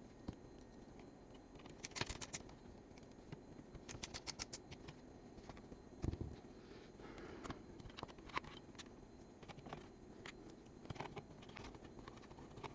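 Small clicks, taps and scratching from hands working on parts, with two quick runs of rapid clicks about two and four seconds in and a soft thump around the middle.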